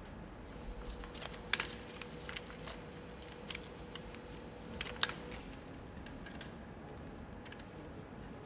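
Light metallic clicks and taps of timing chains and cam sprockets being handled and fitted on a Nissan GT-R engine, with two sharper clicks about a second and a half in and about five seconds in, over a faint steady hum.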